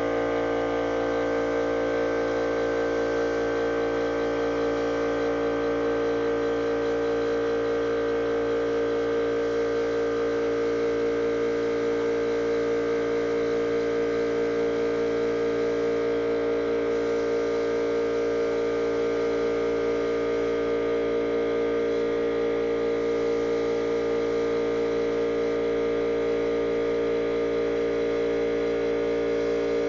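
Paint-shop machinery humming steadily, with several steady tones and an even hiss over them that does not change.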